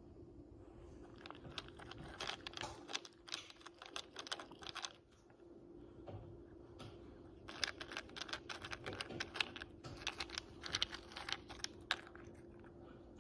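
A cat crunching fish-shaped crackers: quick crisp crunches in two spells with a short pause in the middle.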